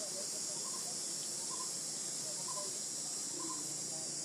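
A steady, high-pitched drone of insects shrilling without a break, with faint short chirps repeating underneath.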